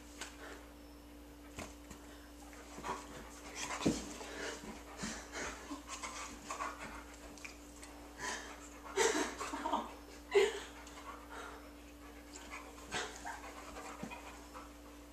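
A dog panting hard after rough play, a long run of short quick breaths, with a few louder huffs about nine to ten seconds in.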